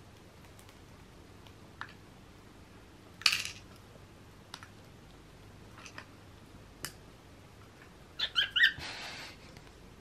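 Cockatiels calling: a short harsh squawk about three seconds in and a quick run of three or four chirps near the end, followed by a brief rasping sound. A few light taps, beaks or tokens on the small token box, fall between them.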